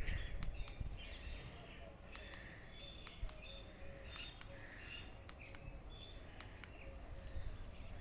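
Faint birds chirping over a low background rumble, with a scatter of light clicks.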